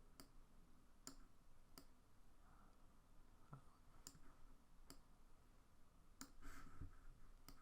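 Faint computer mouse clicks, about seven, spaced irregularly, over near-silent room tone.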